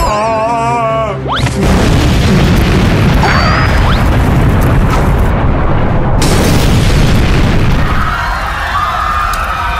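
Cartoon sound effects: a wavering, pitched scream for about a second, then a long, loud, rumbling explosion-like boom that lasts about six seconds. Near the end it gives way to steadier high tones.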